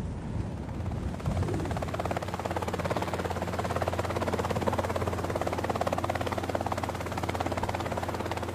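Helicopter running steadily: a fast, even rotor chop over a low engine hum, building up about a second in.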